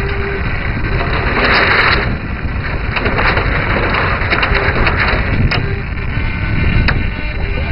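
Wind buffeting the microphone of a small camera mounted on the deck of a 10 Rater model sailing yacht, with water rushing and splashing along the hull as it sails. There are hissing surges of spray and scattered small ticks.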